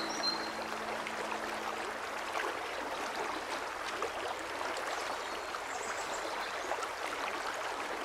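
Mountain stream running over shallow rocky riffles: a steady, even rush of water.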